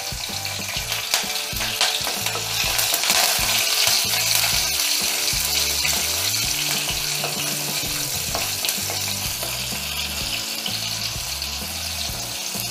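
Shallots and freshly added curry leaves sizzling and crackling in hot oil in a clay pot, stirred with a wooden spatula. The sizzle grows louder about two seconds in and then holds steady.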